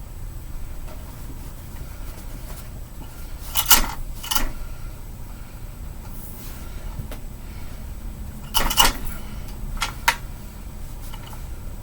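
Several sharp knocks and clatters, in pairs, over a low steady rumble.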